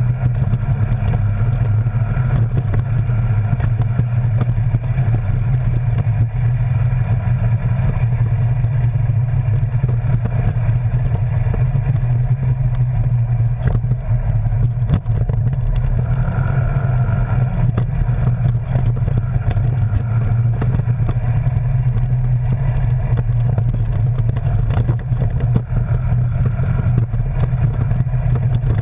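Arctic Cat Wildcat Sport side-by-side's engine running at a steady, low pitch while the machine drives along a rough dirt trail, heard from inside its cab.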